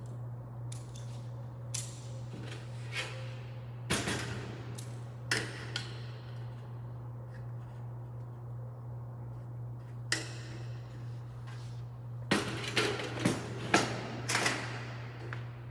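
Light-gauge steel studs and track knocking and clanking as they are handled and fitted together, in scattered sharp hits with a quick run of them near the end, over a steady low hum.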